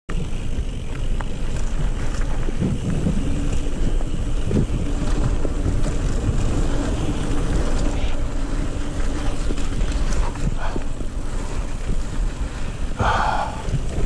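Wind buffeting the microphone as a mountain bike rolls fast down a dry dirt trail, with the rumble of the tyres and small knocks and rattles from the bike over the bumps.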